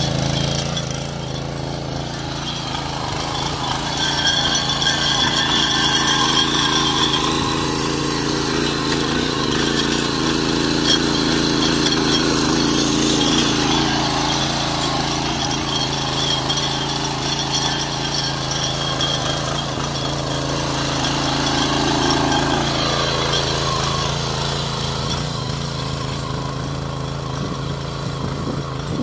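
The 7.5 HP petrol engine of a power weeder running steadily.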